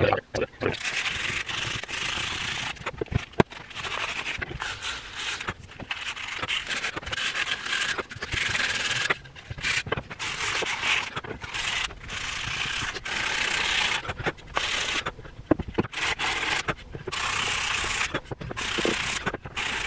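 120-grit sandpaper rubbed by hand back and forth along a wooden rifle stock, taking off the old stain and finish. It makes a steady rasping hiss in long runs broken by short pauses, with one sharp tick about three seconds in.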